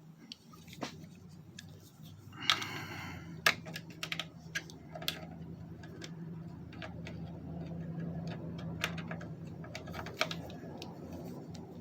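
Small metal tools and parts clicking and clinking as they are handled and sorted in a toolbox, in irregular sharp clicks with a short ringing rattle a couple of seconds in. A steady low hum runs underneath.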